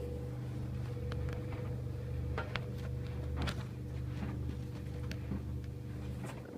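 White Knight 447WV vented tumble dryer running: a steady hum of the motor and turning drum, with scattered light clicks over it.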